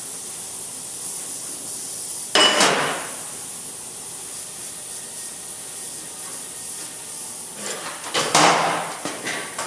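Hammer blows on sheet metal: one sharp strike about two and a half seconds in and a quick run of strikes near the end, each ringing briefly, over a steady background hiss.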